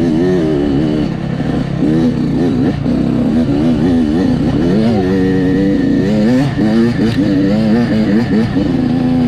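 Dirt bike engine being ridden, revving up and down as the throttle opens and closes, its pitch rising and falling every second or so.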